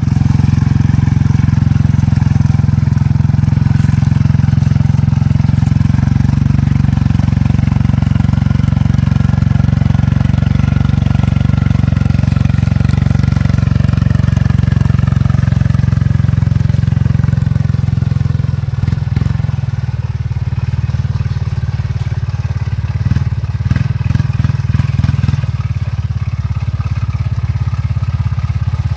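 Honda 300 ATV's single-cylinder engine running at a steady throttle as it pushes through deep mud and water. In the second half the engine note eases slightly, and short runs of quick low thuds come through twice.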